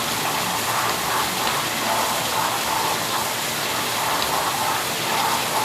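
Dishwasher running its wash cycle: the circulation pump drives water through all three spray arms, which are turning and spraying the inside of the tub in a steady rush of water. The arms are working after being cleaned out, balanced and drilled with small holes to help them turn.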